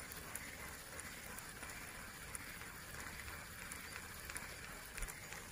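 Faint, steady outdoor background noise with a single knock near the end.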